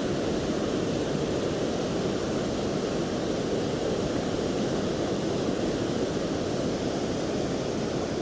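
Steady rushing of a river in flood, an even noise without breaks or distinct events.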